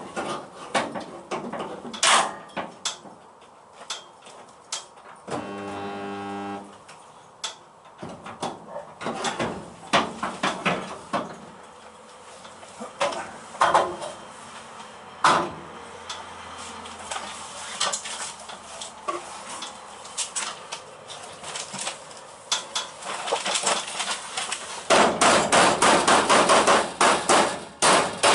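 Hammer blows on steel car bodywork, scattered knocks and taps, with a fast run of repeated blows in the last few seconds. A short buzzing hum sounds once, about five seconds in.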